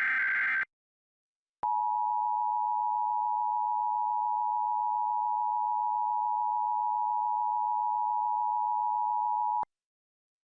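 The last Emergency Alert System SAME header data burst, a harsh digital screech, ends less than a second in; after a second of silence the EAS two-tone attention signal sounds, a steady two-note tone held for about eight seconds that cuts off sharply. Together they announce the start of an alert, here a Required Monthly Test.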